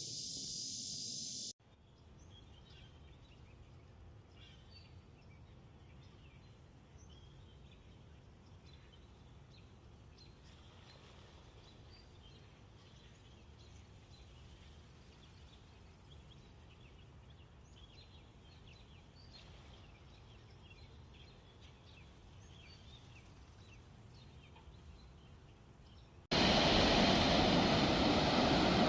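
Spliced outdoor recordings. A loud hiss cuts off about a second and a half in, giving way to quiet outdoor ambience with faint scattered bird chirps. Near the end a loud, steady rushing noise starts abruptly.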